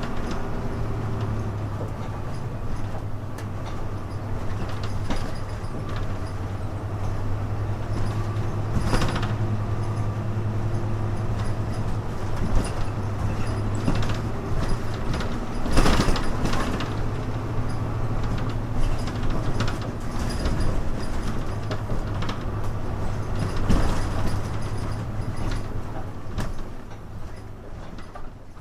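1991–92 Hino Blue Ribbon U-HU2MLAA city bus heard from inside, its engine running with a steady low hum, the muffled tone and odd noises typical of buses of that age, and a few sharp knocks and rattles from the body. The sound fades out near the end.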